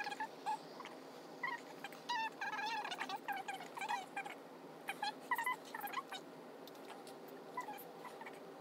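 A series of short, high-pitched animal calls, most of them in the first six seconds and fewer and fainter after that.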